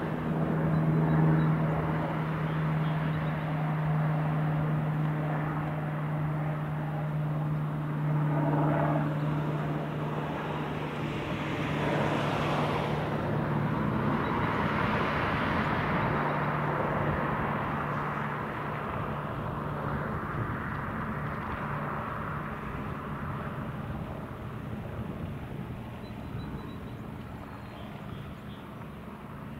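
Cessna 337A Super Skymaster's two piston engines and propellers, front and rear in push-pull, droning steadily on approach. The hum fades in the second half, and a swelling rush of noise rises and falls about twelve to sixteen seconds in.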